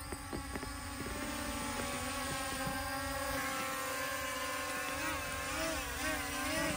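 Small quadcopter drone flying overhead, its propellers giving a steady whine. The pitch wavers up and down near the end as the rotors change speed.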